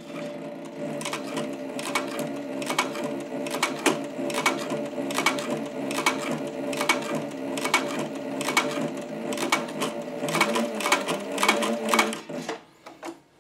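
Cobra Class 26 leather sewing machine stitching slowly through stacked 10-oz leather layers: its motor hums steadily while the needle punches through with a sharp click about twice a second. It stops about twelve seconds in.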